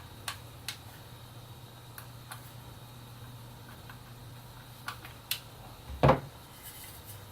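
Small clicks and taps of screws, screwdriver and a hard drive being handled in a metal drive tray, then a single louder knock about six seconds in, over a faint steady low hum.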